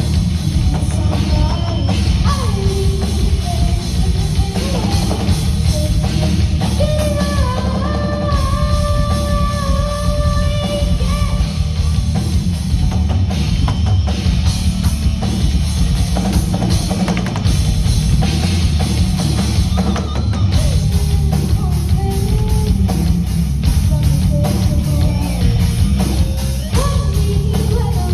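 Live rock band playing a song at full volume, with drum kit, bass and guitars under a singer holding long notes.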